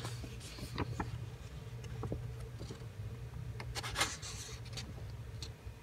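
Paper instruction booklet rustling and rubbing softly as it is handled, with a few light crinkles, the loudest about four seconds in. A steady low hum sits underneath.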